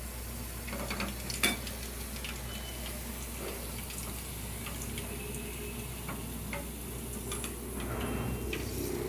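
Hot frying oil left in the pan crackling faintly with scattered small ticks, and one sharper knock about a second and a half in.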